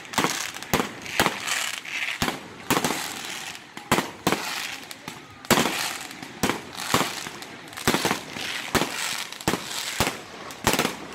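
Aerial fireworks display: shells bursting overhead in a rapid, irregular run of bangs, about two a second, with a hissing crackle between them.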